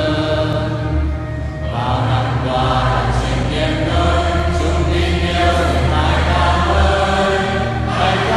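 Choir singing a Vietnamese Catholic hymn over a steady low accompaniment, with a brief break between phrases about a second and a half in.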